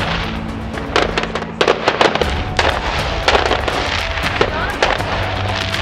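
New Year's fireworks exploding: rockets and shells bursting in an irregular string of sharp bangs and crackles, several a second.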